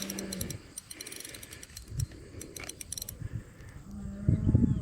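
Fishing reel clicking in a rapid, uneven ratchet for about three seconds while a big fish pulls on the line. A few low bumps near the end.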